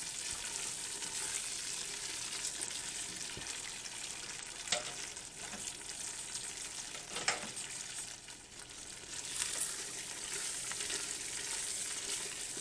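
Chopped onion, celery, green pepper and garlic sizzling in a roux in a hot pot while being stirred with a spoon, with two sharp knocks of the spoon against the pot about five and seven seconds in.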